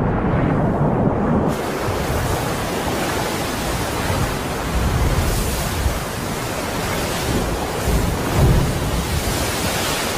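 Shallow submarine volcanic eruption breaking through the sea surface: a steady rushing noise of churning water and steam over a low rumble. It turns brighter and hissier about a second and a half in, with a heavier low surge near the end.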